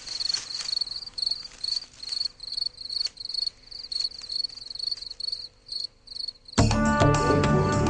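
A cricket chirping steadily at one high pitch, about two to three chirps a second. About six and a half seconds in, louder instrumental music comes in over it.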